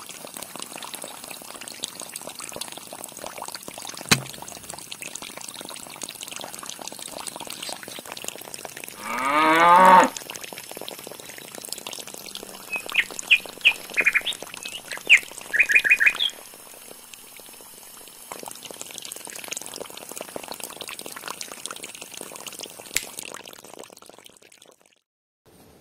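Water from a small homemade pump's hose pouring and splashing into a shallow pool, a steady wash. A loud call rising in pitch lasts about a second, a little before the middle, and birds chirp several times just after it.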